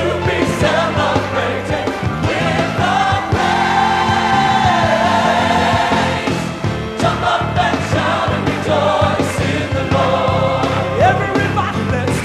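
Gospel choir singing over a full band with a steady bass beat. The choir holds one long chord about three seconds in.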